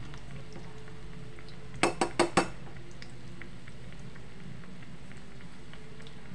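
Bread rolls deep-frying in a small pot of oil: a steady sizzle with scattered small crackles. About two seconds in come four quick, sharp metallic clacks from metal tongs.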